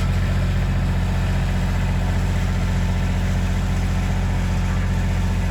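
Bobcat 553 skid steer's diesel engine idling steadily.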